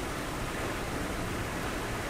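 Steady rushing wind of a winter snowstorm, an even noise with some low rumble and no breaks.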